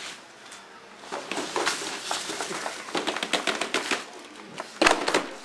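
Dry leaves rustling and crackling as they are handled in plastic trays, with one louder knock near the end as a tray is moved.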